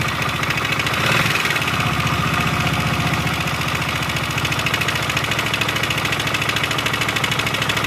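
Yamaha MT-15's 155 cc single-cylinder engine idling with a rapid, even 'ghat-ghat' clatter from the timing chain. The clatter is the sign of a faulty cam chain tensioner.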